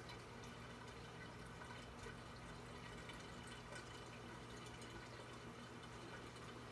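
Faint steady sound of a reef aquarium's circulating water: a light trickle and drip over a low, even pump hum.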